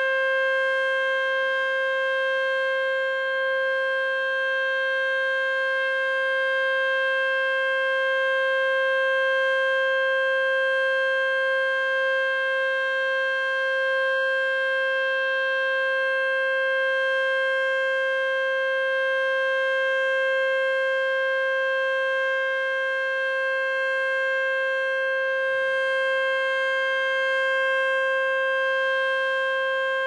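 Electronic outdoor warning siren with a stacked speaker array, sounding a steady tone at one unchanging pitch during a siren test.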